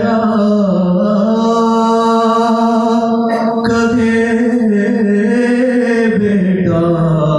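A young man's unaccompanied solo voice chanting a Muharram devotional recitation into a microphone, holding long drawn-out notes whose pitch rises and falls slowly, with one short break for a consonant about halfway through.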